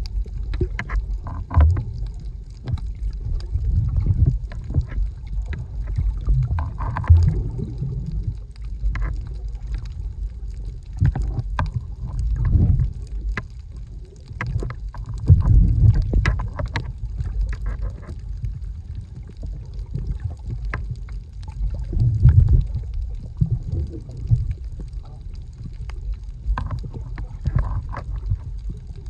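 Water heard through a submerged camera's microphone: a muffled low rumbling and sloshing that swells and fades every few seconds, with scattered sharp clicks.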